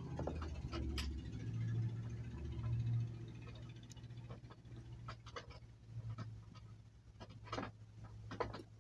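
Low rumble of a phone microphone being handled and rubbed against clothing, with a few small clicks and rustles scattered through and a cluster near the end.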